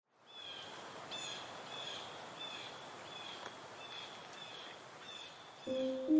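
Outdoor ambience: a steady faint hiss with a short, high chirp repeating evenly about every two-thirds of a second. Piano notes come in just before the end.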